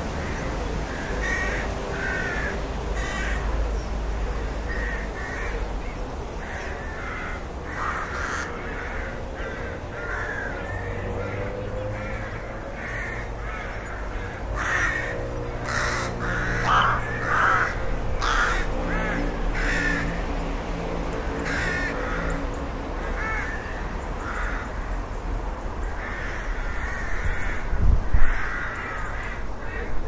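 Rooks cawing: a long series of short, harsh calls, thickest and overlapping around the middle, over a low steady rumble. A single low thump comes about two seconds before the end.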